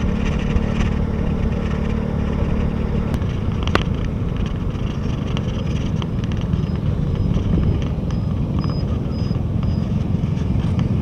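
Yamaha Taurus motorbike riding through city traffic: steady engine rumble mixed with road and wind noise, among other motorbikes as it comes up to a red light.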